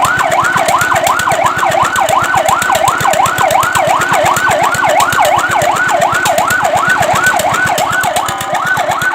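Fire truck siren in a fast yelp, its pitch sweeping rapidly up and down about three times a second, with a brief steady tone near the end.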